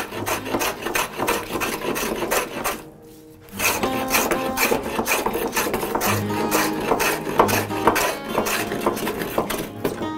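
Metal bench plane cutting a laminated wood bench top in short, rapid strokes, each stroke a scraping rasp as it takes a shaving, with a brief pause about three seconds in. The plane is levelling a high end of the top during flattening. Background music plays underneath.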